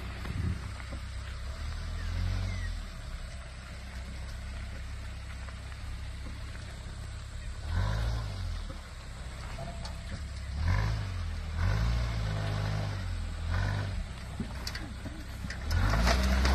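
Daihatsu Terios 4x4's small petrol engine crawling over deep ruts on a dirt track, revving up and down in several pushes from about eight seconds in, and loudest near the end as the car comes close.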